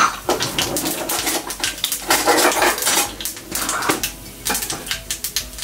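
Mustard and cumin seeds spluttering in hot coconut oil in a small pan: a dense, irregular crackle of sharp pops.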